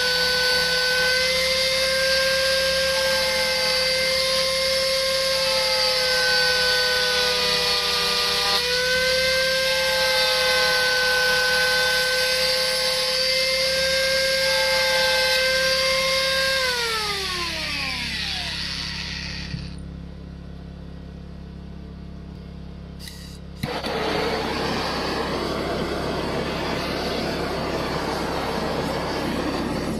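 Angle grinder driving a tiny Manpatools belt cutter attachment, running with a high whine as it carves into a wooden block, its pitch shifting as it is pressed into the wood. About 17 seconds in it is switched off and winds down, its pitch falling away. About 24 seconds in a click is followed by the steady hiss of a gas blowtorch burning the carved surface.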